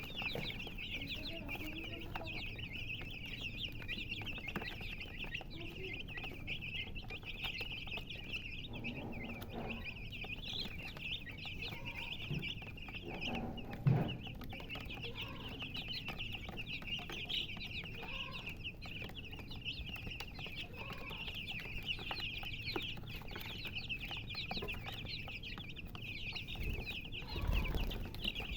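Many baby chicks peeping continuously in high, rapid chirps, with occasional low clucks from a hen and a brief thump about halfway through.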